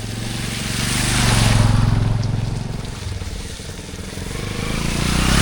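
Motorcycle engine running at a steady pitch, with a rushing noise that swells about a second and a half in and again near the end.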